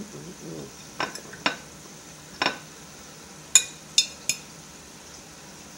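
Metal fork clicking against a glass plate while cutting through a cooked egg: about six clicks, the last three sharper, each with a brief glassy ring.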